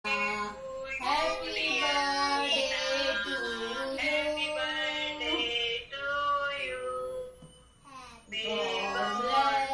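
Voices singing in sung phrases, with a short break about six seconds in and a longer one just before eight seconds.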